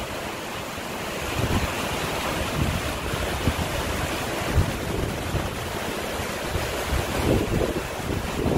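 Steady rush of floodwater flowing over the ford, with wind buffeting the microphone in irregular gusts.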